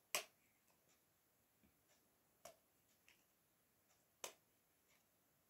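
Three sharp clicks about two seconds apart from Remington hair straighteners, their plates clamping shut on hair, with a few fainter ticks between; otherwise near silence.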